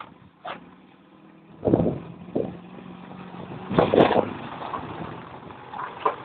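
Classic Mini 1000's A-series four-cylinder engine running steadily, with a few loud knocks or bumps about two seconds in and again near the middle.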